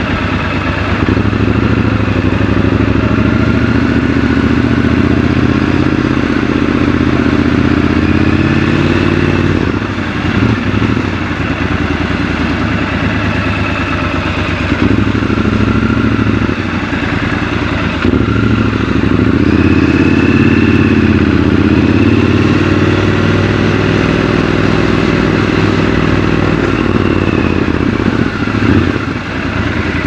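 Triumph Scrambler 1200 XC's 1200 cc parallel-twin engine running under way in city riding. It rises in pitch as it accelerates about a second in and again around twenty seconds in, with short drops off the throttle about ten seconds in and near the end.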